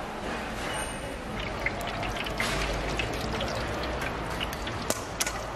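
Hot oil in a deep fryer sizzling, with many sharp irregular crackles and pops.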